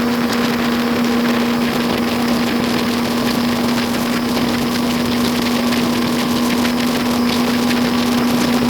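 Motorboat engine running at a steady speed, an even, unchanging hum under a constant rushing hiss.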